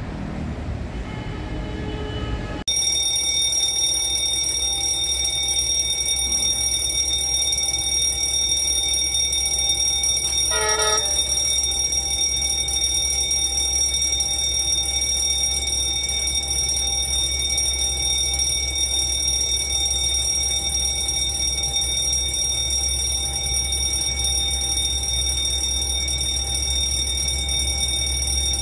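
A diesel train's running noise with a horn tone for the first couple of seconds, then an abrupt cut to an electric warning bell, like a railway level-crossing bell, ringing steadily and without a break. A short pitched toot is heard about eleven seconds in.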